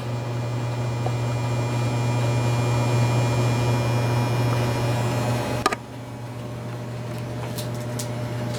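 1999 Hunter Original ceiling fan motor running on high with a strong steady hum. A sharp click comes about five and a half seconds in, and the hum goes on a little quieter after it. The owners take the heavy hum for a sign that something is wrong with the fan.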